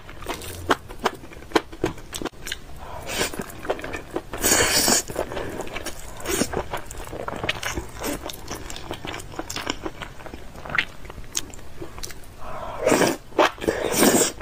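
Close-miked eating sounds: noodles in thick red sauce being chewed and smacked with many sharp wet clicks, and two longer slurps, about four and a half seconds in and near the end.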